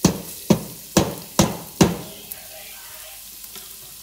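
Five sharp knocks, about two a second, as a cutting board is tapped against the rim of a stainless steel pot to shake minced garlic off it, followed by a steady soft sizzle of the garlic frying in hot olive oil.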